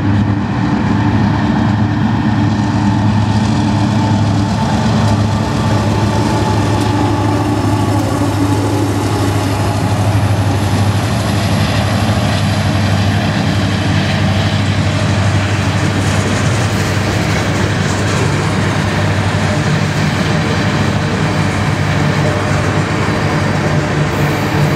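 Diesel locomotives pulling an empty BNSF coal train, their engines running with a steady low drone as they approach and pass, followed by empty coal hopper cars rolling by.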